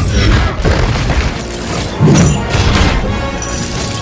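Busy cartoon sound effects with a sudden loud, low boom about two seconds in, over background music.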